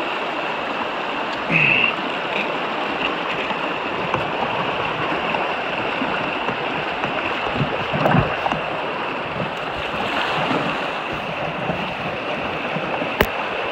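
Rushing water of a river rapid running steadily around a canoe that is hung up on rocks, with a knock about eight seconds in and a sharp click near the end.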